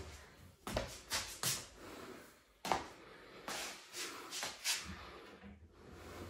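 Wooden furniture panels being handled: a string of light knocks and rubs, with one sharper knock about two and a half seconds in.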